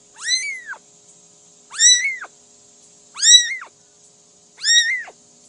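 Cat meowing four times, about every second and a half, each meow rising and then falling in pitch.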